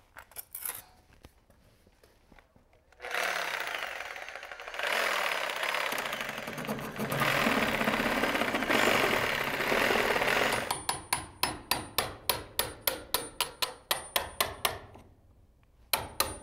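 Corded reciprocating saw cutting through a wooden door jamb for about seven seconds, starting about three seconds in. It is followed by a fast run of sharp knocks, about six a second, for some four seconds.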